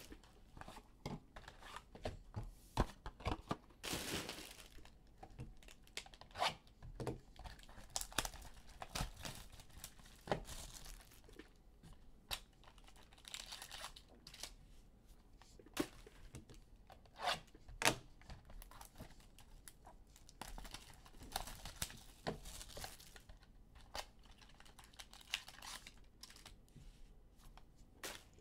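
Trading card packs being torn open and their wrappers crinkled, with irregular sharp clicks and rustles as the cards are handled. A longer tearing sound comes about four seconds in.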